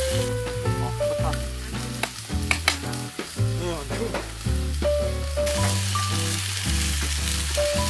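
Food sizzling and frying on a barbecue, a steady hiss with a few sharp clicks about two to three seconds in. Background music with held notes and a low bass runs under it.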